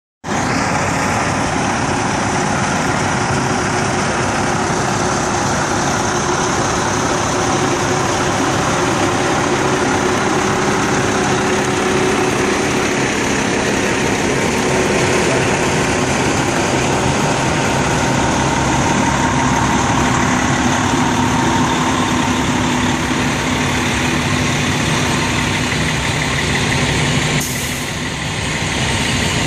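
Fire trucks' engines idling steadily at close range: a continuous, even running sound.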